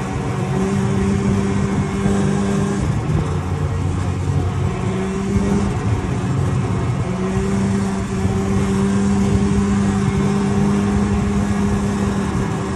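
Snowmobile engine running under way with a steady note that wavers and shifts pitch a few times, under a steady rushing hiss of wind and snow.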